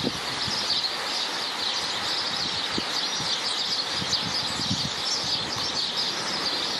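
Garden ambience: a dense, steady chorus of high chirping, with wind moving through the trees underneath.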